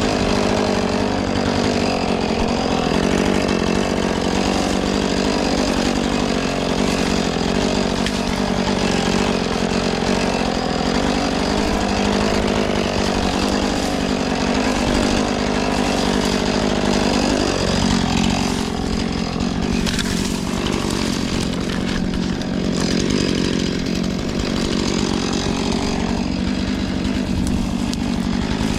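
Husqvarna 450 Rancher two-stroke chainsaw running continuously while cutting the wood of a fallen tree. Its pitch wavers up and down as it cuts, and rises sharply about two-thirds of the way through.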